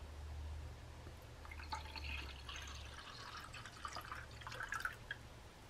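Water poured from a plastic bottle into a drinking glass, faint splashing and filling that starts about a second and a half in and stops near the end.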